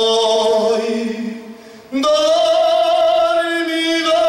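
A man singing two long held notes: the first until almost two seconds in, then, after a brief dip, a higher note sung with vibrato.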